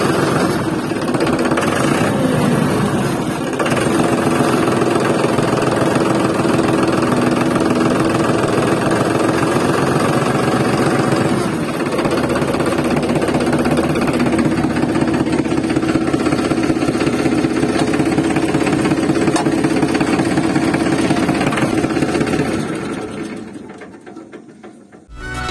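Tractor engine running steadily with an even chugging pulse, fading out near the end.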